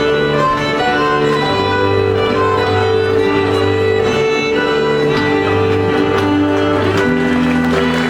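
Moravian folk string band playing a dance tune, fiddles leading over a steady bass line.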